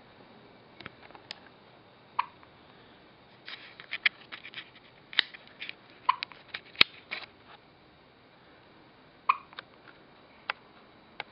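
Baby hiccuping: three short, sharp hics a few seconds apart. Between them come a flurry of small clicks and rustles and one sharp click.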